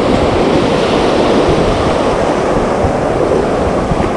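Ocean surf breaking and washing up the beach as a steady rush of noise, with wind buffeting the microphone.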